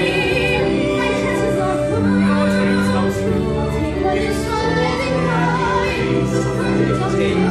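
Cast of a stage musical singing an ensemble number, men's and women's voices together, over instrumental accompaniment.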